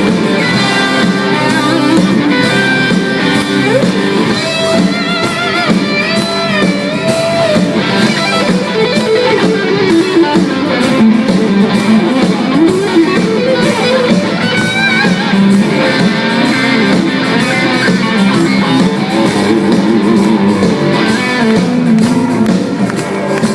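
Live rock band playing an instrumental break: a lead electric guitar melody with bends and vibrato over the rest of the band.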